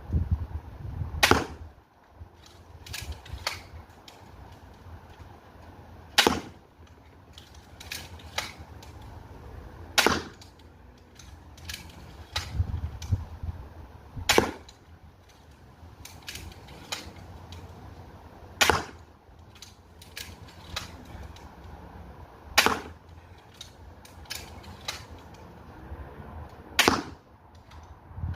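Magazine-fed repeating crossbow firing seven times, each shot a sharp snap about four seconds apart. Lighter clicks and clacks come between the shots.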